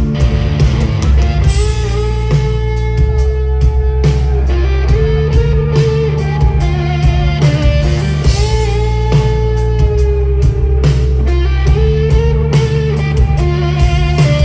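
Rock band playing an instrumental passage: an electric guitar lead with bent, gliding notes over a steady bass line and drum beat.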